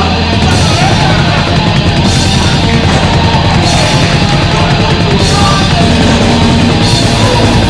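Loud heavy metal music.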